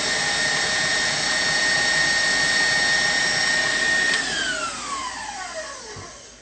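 Electric stand mixer running at speed, beating a thin batter with a steady high whine. About four seconds in it is switched off, and the motor's whine falls steadily in pitch and fades as it spins down.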